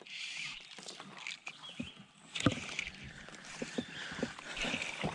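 Fly casting from a small boat: the fly line swishing through the air and guides over a steady hiss, with light knocks of gear against the boat and one sharper knock about two and a half seconds in.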